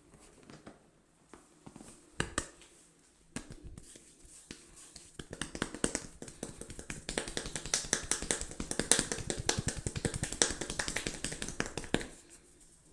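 A barber's hands tapping and slapping on a head during a head massage. There are a few scattered taps at first, then from about five seconds in a fast, continuous run of taps that stops shortly before the end.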